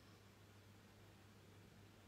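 Near silence: room tone, a faint steady low hum under a light hiss.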